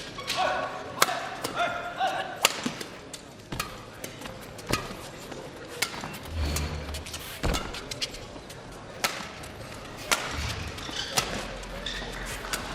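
Badminton rally: rackets hitting the shuttlecock in sharp cracks at irregular spacing, roughly one a second, over arena crowd murmur, with a couple of low thuds from the players' footwork.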